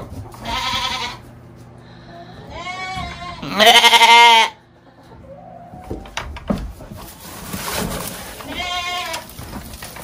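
Old English Southdown lambs bleating several times with quavering calls, the loudest and longest about four seconds in. They are hungry lambs calling for feed.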